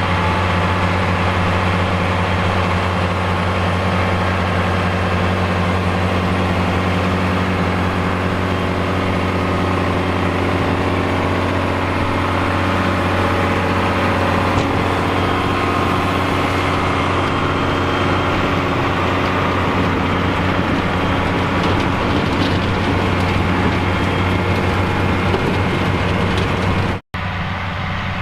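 Fiat 110-90 DT tractor's diesel engine running at a steady, even speed. Near the end the sound cuts out abruptly for an instant, then resumes slightly quieter.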